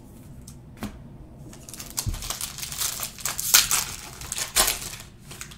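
A foil trading-card pack wrapper crinkling as hands handle it and open it. The crackling builds about a second and a half in and is loudest near the end.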